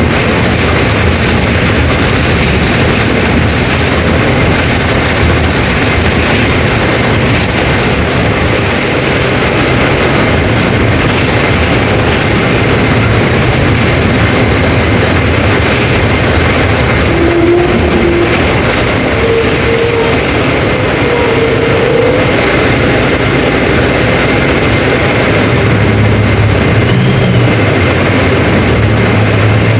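Mercedes-Benz OF 1721 BlueTec 5 bus running under way: steady engine and drive noise with body rattles and a few brief faint squeaks.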